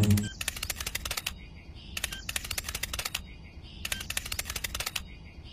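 Cartoon footstep sound effect: bursts of rapid light clicks, each about a second long, with short pauses between, several times over.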